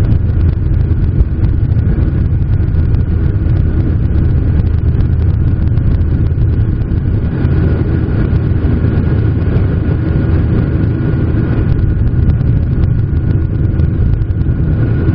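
Boeing 737-800's CFM56 turbofan engines running at high takeoff power, heard from inside the passenger cabin as a loud, steady deep rumble with a thin steady whine above it.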